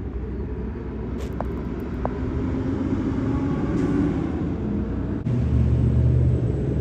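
Low, steady vehicle rumble, with a deeper, louder hum setting in suddenly about five seconds in.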